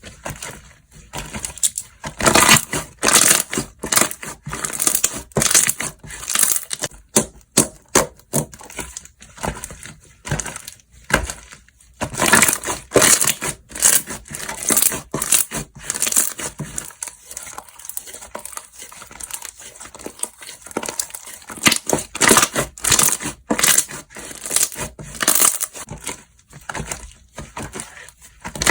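Slime being squeezed and pressed by hand, giving bursts of crackly clicks and pops with short pauses between squeezes.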